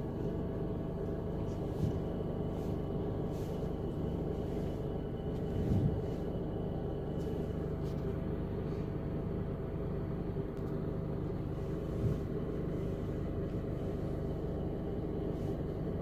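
Honda Civic engine idling steadily, heard from inside the cabin, with a few soft knocks, the loudest about six seconds in.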